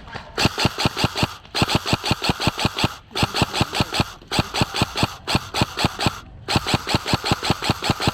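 Airsoft rifle firing in about six rapid bursts of sharp clicking shots, around seven or eight shots a second, with short pauses between bursts.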